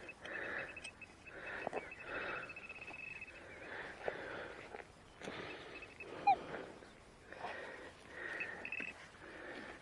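A metal detecting pinpointer giving a rapid, steady, high pulsing beep for about three seconds as it finds a shallow target in the dug soil, followed by scraping and rustling of soil being worked by hand, with one short sharp sound a little after six seconds.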